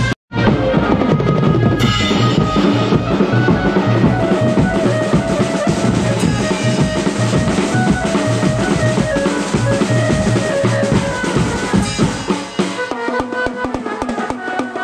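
Live band of several drummers playing sets of steel-rimmed multi-drums with sticks in a fast, dense rhythm, with a keyboard melody over it through loudspeakers. The sound cuts out for an instant right at the start. About twelve and a half seconds in, the deep bass drops away and the drums carry on in quick, sharp strokes.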